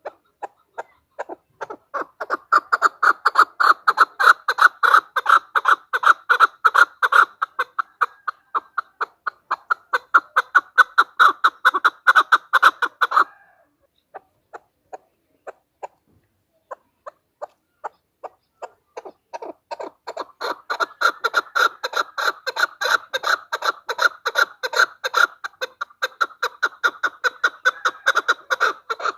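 Female chukar partridge calling: a fast run of short, repeated notes, several a second, in a long bout that breaks off about halfway into a few scattered notes, then builds into a second long bout near the end.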